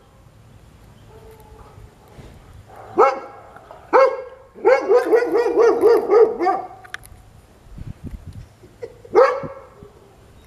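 Goldendoodle puppy barking: two single barks, then a quick run of about eight barks, and one more bark near the end. It is alert barking at a visiting dog he cannot see, since he is blind and does not know who it is.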